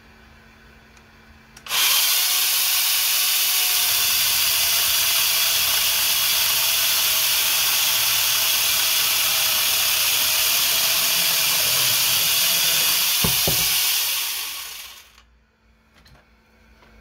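Cordless angle grinder fitted with a chainsaw conversion bar starts abruptly about two seconds in and saws through a small log, a steady high motor whine with the chain rasping through the wood. Near the end come a couple of sharp knocks, then the motor winds down and stops.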